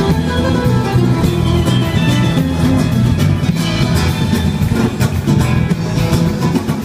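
Live acoustic guitar played in flamenco style, with rapid strummed chords cutting through the plucked notes.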